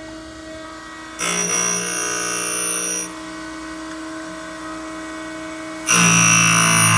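Harig 618 hydraulic surface grinder running, its abrasive wheel spinning with a steady hum while the hydraulic table carries a steel block back and forth beneath it. A loud, high-pitched grinding sets in about a second in as the wheel bites the steel, lasts about two seconds, then drops back to the running hum, and sets in again near the end.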